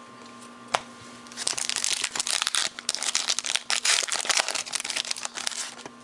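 Foil wrapper of a baseball card pack being torn open and crinkled: a sharp click just under a second in, then about four seconds of dense, crackly crinkling.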